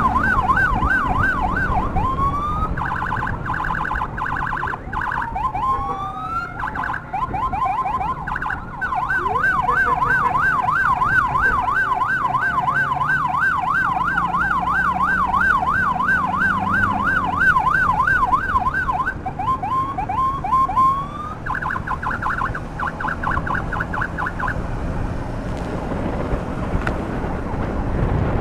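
Electronic emergency siren switching between modes: a fast warble of about three cycles a second, bouts of rapid pulsing, and short rising sweeps, over steady road and engine noise. The siren stops about three-quarters of the way through, leaving the road noise.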